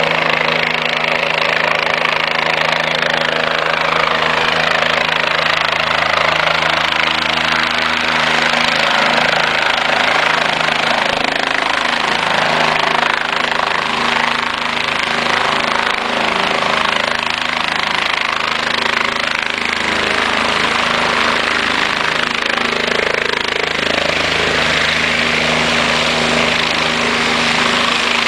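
Light turbine helicopter coming in to land: steady rotor blade chop over the engine's running, continuing at full power after touchdown with the rotor still turning.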